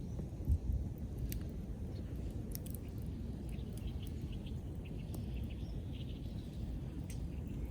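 Wood fire crackling: scattered sharp pops over a steady low rumble, with one dull thump about half a second in.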